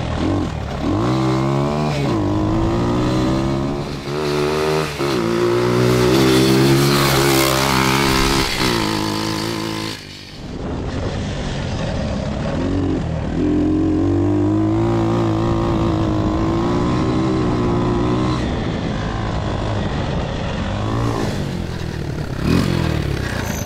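High-output 140cc four-speed semi-automatic single-cylinder pit-bike engine in an off-road go-kart, accelerating hard. Its pitch climbs and falls back at each upshift, then it holds fairly steady at speed.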